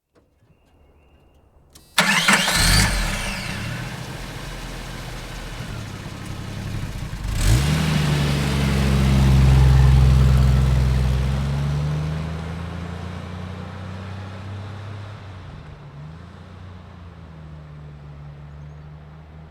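SUV engine cranked and started about two seconds in, then running steadily. About seven seconds in the engine revs up as it pulls away, grows loudest as it drives past, and fades slowly as it moves off.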